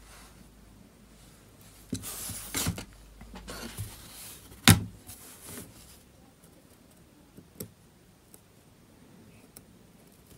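Fingers and tweezers working at the edge of an opened tablet's frame: a couple of seconds of rubbing and scraping, then one sharp click about halfway through, and a few faint ticks later.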